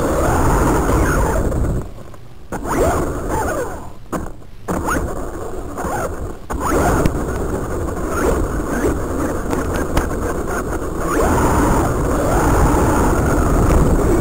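Feiyue Eagle RC off-road truck driving: its electric motor and gears whine, rising and falling in pitch with the throttle over the noise of the tyres on the ground. The sound drops away briefly a few times, around two and four seconds in.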